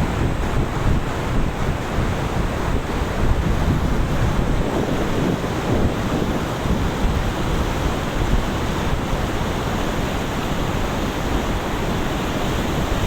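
A river swollen with floodwater rushing steadily, with wind buffeting the microphone.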